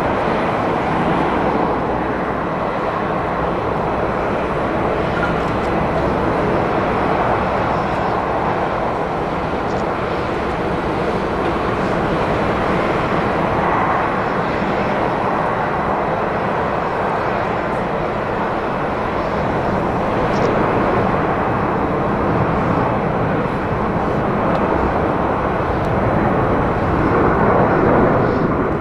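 Jet engine noise of a Japan Airlines Airbus A350-941 airliner with Rolls-Royce Trent XWB engines: a loud, steady rushing noise that grows a little louder near the end.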